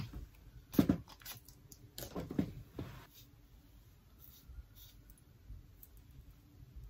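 Short rustles and crinkles of hands handling a small alcohol prep pad and its wrapper. The loudest comes about a second in, with another cluster around two to three seconds in, and then only faint handling.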